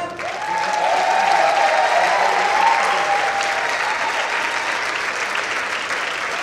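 Audience applauding and cheering just after the music cuts off, marking the end of the dance.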